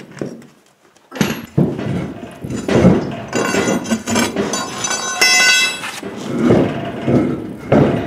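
A big hay-baler tire on its steel rim being rocked and pulled off the hub: knocks and scraping, with a high squeak in the middle, and a man straining and grunting with the weight.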